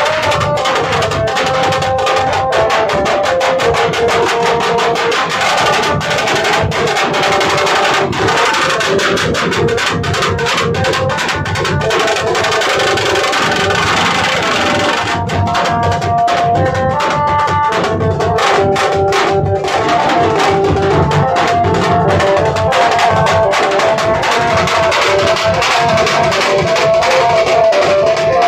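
Nashik baja band playing live: several large dhol drums beaten with sticks in a fast, dense rhythm, with a melody line carried over the drumming. About halfway through, the drumming breaks into sharper separate strokes for a few seconds before the full rhythm resumes.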